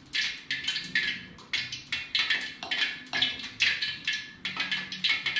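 A spoon stirring wet vegetable fritter batter of shredded cabbage, carrot and bean sprouts in a bowl, in quick repeated strokes, a few a second.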